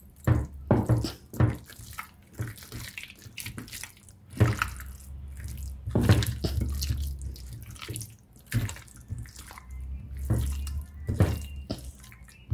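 A bare hand squishing yogurt into marinated chicken pieces in a glass dish: irregular wet squelches and slaps.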